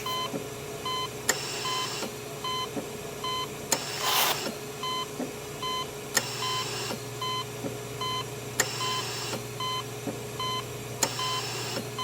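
Electronic beeping, short even beeps about two or three a second, over a steady low hum. A sharp click comes about every two and a half seconds, each followed by a short hiss, and there is a louder burst of noise about four seconds in.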